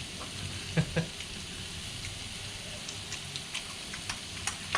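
Meat sizzling on a mookata grill pan: a steady frying hiss, with two sharp knocks about a second in and several lighter clicks later.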